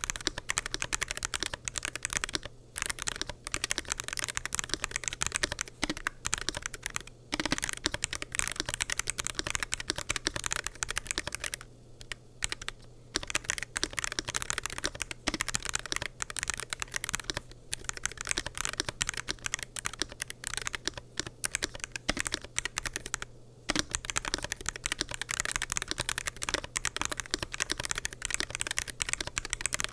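WLmouse Ying75 keyboard with TTC Shadow switches, PBT double-shot keycaps, an aluminium plate and a forged carbon fibre gasket-mounted case, typed on quickly in steady runs of keystrokes. There are brief pauses a few times, the longest about a second, around twelve seconds in.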